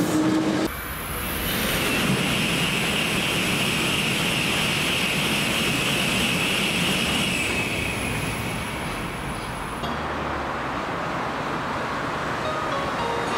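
Tokaido Shinkansen train passing at speed: a loud, steady rushing roar with a high hiss, easing off after about eight seconds into a lower, steady rumble.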